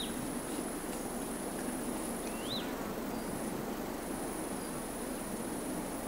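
An insect trills steadily at a very high pitch, breaking off briefly near the middle, while a bird gives a short rising whistled note twice, once at the start and again about two and a half seconds in. Under both runs a steady, even rushing background.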